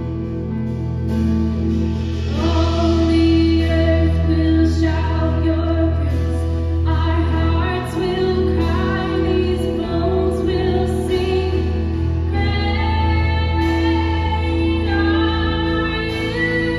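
Live worship band playing a slow song: a woman sings the lead over keyboard, guitars, drums and a steady bass. The band plays alone at first, and the singing comes in about two seconds in.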